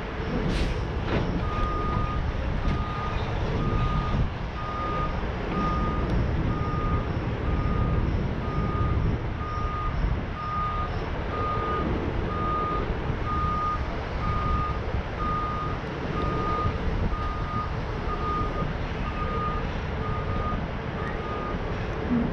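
Heavy tow truck's reversing alarm beeping at one steady pitch about once a second, over the low, steady running of the truck's engine as it backs up. The beeps start about a second and a half in and stop shortly before the end.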